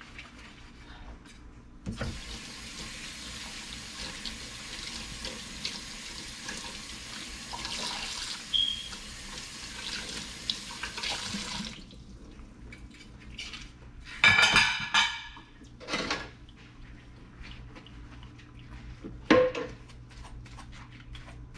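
Kitchen tap running into a sink for about ten seconds as dishes are rinsed, then shut off. A few sharp clatters and clinks of dishes in the sink follow, the loudest a little after the water stops and again near the end.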